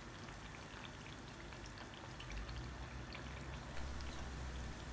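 Bread slices deep-frying in hot ghee: a faint, steady sizzle flecked with tiny crackles. A low rumble joins for about a second midway.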